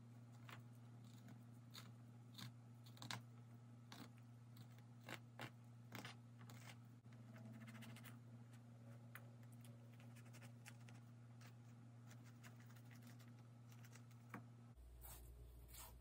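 Near silence: faint scattered clicks and scrapes of a fillet knife trimming and deboning trout fillets on a plastic cutting board, over a steady low hum that shifts in pitch near the end.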